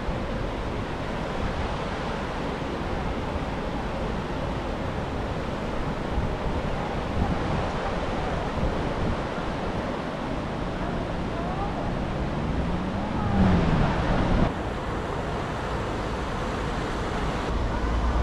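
Steady rush of a shallow river pouring over a low weir. A passing vehicle's engine rises in pitch and gets louder about 13 seconds in, then drops away.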